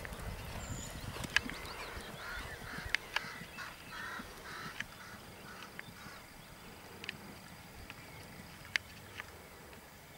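A horse cantering on a sand-and-gravel arena, its hoofbeats faint, with birds calling in the background and a few sharp clicks scattered through.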